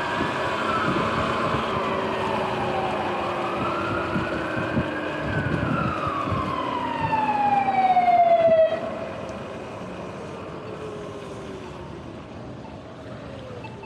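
Emergency vehicle siren wailing, its pitch rising and falling slowly in cycles of about five seconds. It is loudest near the end of a long falling sweep about nine seconds in, then suddenly drops much quieter and fades.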